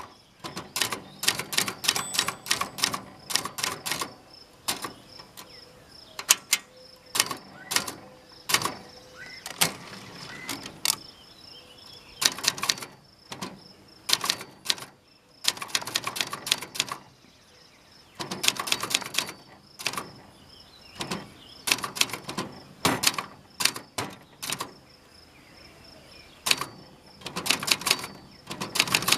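Brother JP-1 manual typewriter (sold as a Sears) being typed on: irregular runs of sharp keystroke clacks with short pauses between them, and a metallic rattle from the thin metal table it stands on.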